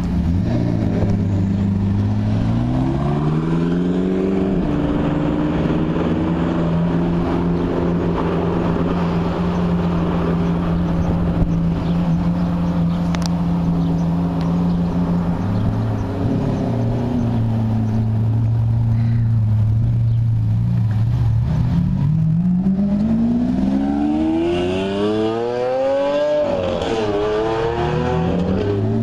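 Supercar engines idling, with revs rising and falling as a car pulls out of the line. A long rev climbs higher and drops back about three-quarters of the way through.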